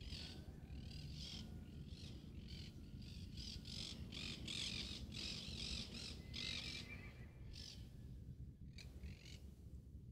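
Birds calling in a quick run of short, harsh, repeated calls that grow thick in the middle and thin out near the end, over a steady low rumble.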